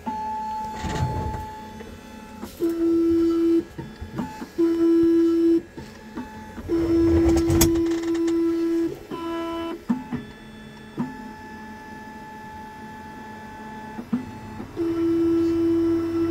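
Computerised Keyline key-cutting machine running its cycle on a Toyota key blade. Its motors whine in stop-start runs of about a second as the carriage moves the clamped key, with a couple of brief noisy scrapes.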